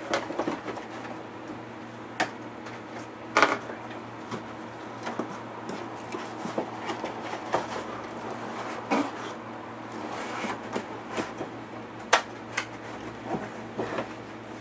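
Cardboard boxes and packaging being handled, shifted and set down: scattered knocks, taps and rustles, the sharpest about three and a half seconds and twelve seconds in, over a faint steady hum.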